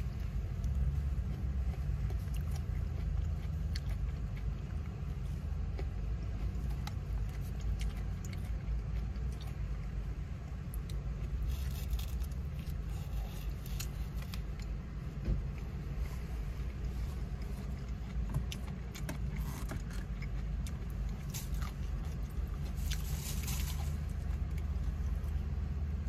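Eating sounds: chewing and the clicks and scrapes of a plastic fork in a foam takeout box, over the steady low rumble of a car. A brief louder crackle comes near the end.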